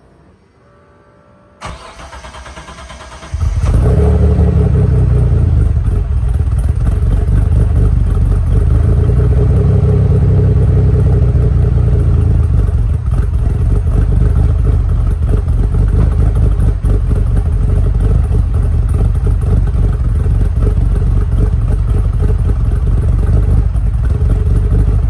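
1994 Dodge Stealth R/T Twin Turbo's twin-turbo V6 cold-starting through a Tanabe Hyper Medallion Touring cat-back exhaust: the starter cranks briefly about two seconds in, the engine catches about three seconds in, and it then runs at a steady, loud cold idle.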